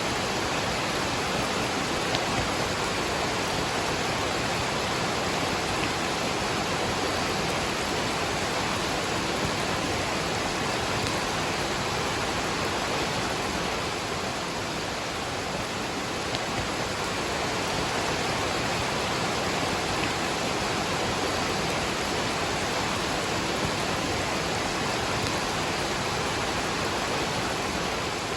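Waterfall rushing together with falling rain, one steady, unbroken hiss of water with a few faint ticks in it.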